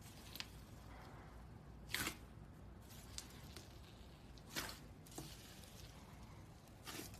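Slime being squeezed and pressed by hand: a series of short, soft squishes a second or two apart, the loudest about two seconds in and again near the middle, with small crackling clicks between them.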